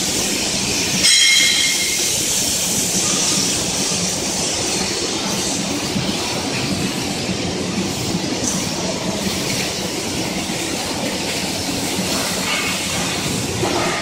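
Steady industrial noise of a factory workshop, with a brief high metallic squeal about a second in.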